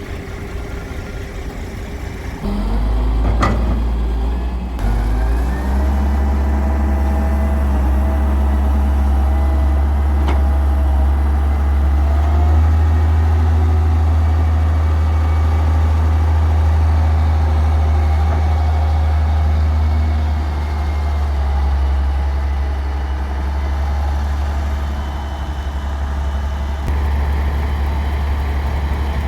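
Heavy diesel engine running with a deep steady rumble, growing louder about two and a half seconds in. A single sharp clank comes about a second later.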